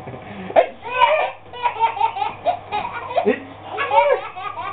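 A toddler laughing in repeated giggly peals, each burst rising and falling in pitch.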